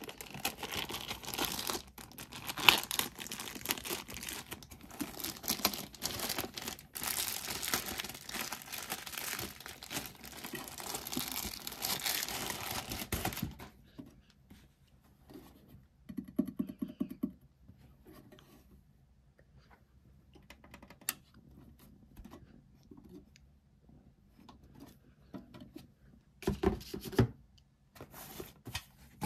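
Plastic bag crinkling and rustling as it is pulled off a drive enclosure, stopping about halfway through. After that only sparse light taps and brief handling knocks remain.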